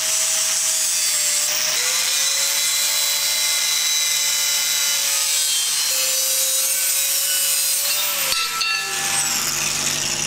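Angle grinder cutting through a steel bracket clamped in a vise, its motor running steadily under load. About eight seconds in it is switched off and its whine falls away as the disc spins down.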